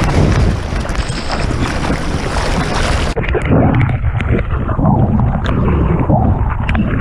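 Whitewater rushing and splashing over the nose of a surfboard close to a board-mounted action camera. About three seconds in, the hiss cuts off suddenly and the sound turns muffled and low, with sloshing and small pops, as the camera dips into the water.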